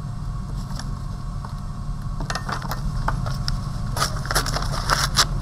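Newspaper crinkling and rustling as a strip is folded and rolled tightly between the fingers, in short crackly bursts from about two seconds in, over a steady low hum.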